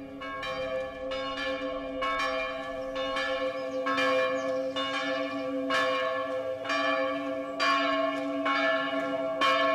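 Church bells ringing, struck in a steady rhythm of about two strikes a second, their tones ringing on between strikes.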